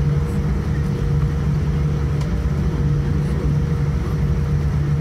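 Cabin noise inside a Boeing 787-9 Dreamliner taxiing, heard from a window seat over the wing: a steady low hum from the engines and air conditioning, with a faint steady higher tone above it.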